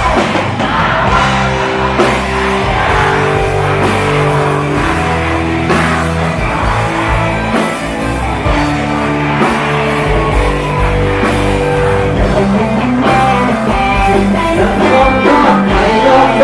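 A band playing a luk thung song, an instrumental passage between sung lines, with a voice coming back in near the end.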